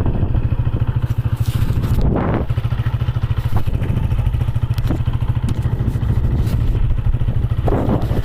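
Motorcycle engine running steadily with a low, fast-pulsing drone as the bike is ridden, with a few brief clatters.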